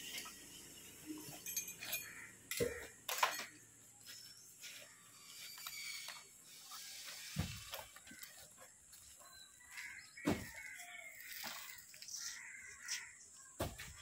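Scattered clinks and knocks of a canvas work belt's metal buckle and rope being handled as a belt is fastened round the waist, with birds calling in the background.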